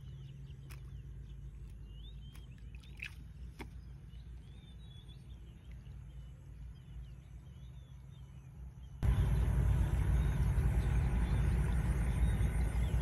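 Small birds chirping over a low, steady rumble, with a few light knocks. About nine seconds in, a much louder, steady rush of water noise starts abruptly.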